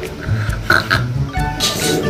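Background music with a steady low beat and a brief hiss near the end.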